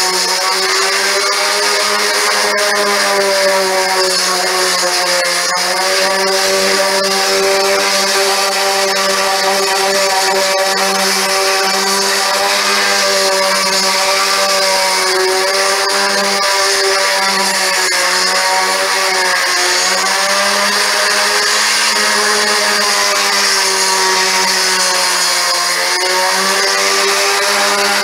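Electric orbital sander running steadily on a primed cabinet door, its motor hum wavering slightly in pitch as it is pressed and moved over the surface.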